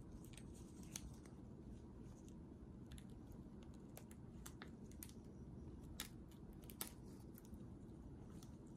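Faint, scattered small clicks and crackles over near silence: a crayfish's exoskeleton being pried off the muscle by gloved fingers and a probe. The two sharpest clicks come near the end.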